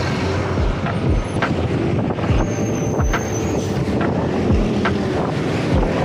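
Wind rushing over a small action camera's microphone on a moving fixed-gear bicycle, mixed with the engines of street traffic close by. A steady noise runs throughout, broken by repeated low thumps.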